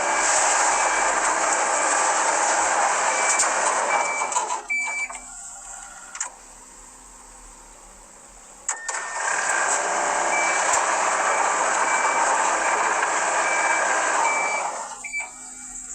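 Excavator running with its travel alarm beeping at an even pace; the noise drops away about four and a half seconds in, returns nearly nine seconds in, and fades near the end. The machine has a fault that keeps shutting it off while it runs.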